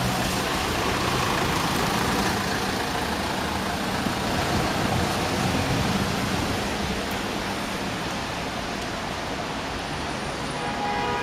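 A bus engine running close by amid a steady hiss of rain and traffic. A short horn-like tone sounds near the end.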